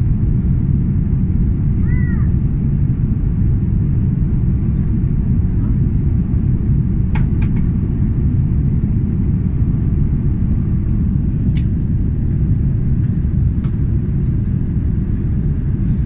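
Steady low rumble of an Airbus A330 airliner's cabin on approach, engine and airflow noise heard from a window seat inside the cabin. A few faint clicks sound about halfway through.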